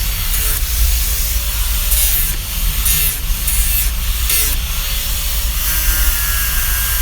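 Handheld electric grinder carving a softwood stool: the motor runs steadily while the bit rasps into the wood in short passes, about four of them. Near the end a steady whine from the tool comes in.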